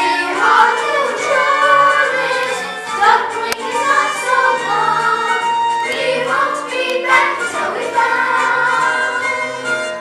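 Children's chorus singing a stage-musical number over instrumental accompaniment.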